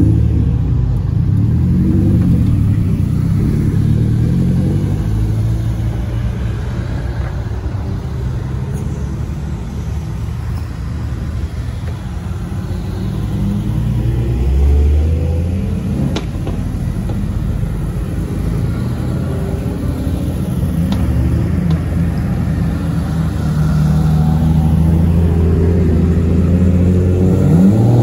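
Cars passing at low speed one after another, their engines running low and steady. About halfway through a yellow BMW M4, a twin-turbo straight-six, goes by, the loudest pass; the engine sound swells again near the end as more cars come through.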